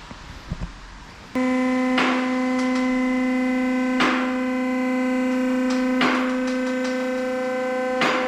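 Electronic music: a sustained synthesizer tone that starts suddenly about a second and a half in, with a percussive hit every two seconds, and stops suddenly at the end.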